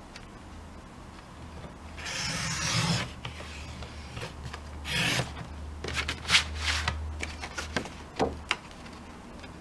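Sliding paper trimmer's cutting head drawn along the rail through black card: a loud rasping stroke about two seconds in and a shorter one about five seconds in, followed by a string of clicks and taps. The owner finds the trimmer's blade already getting wrecked.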